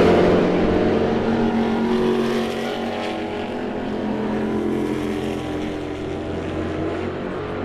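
GT race car engines running through a corner. The loudest passes right at the start and fades away, and engine sound carries on steadily after it.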